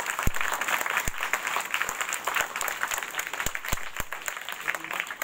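Audience applauding, a dense patter of many hands clapping, with a few low thumps.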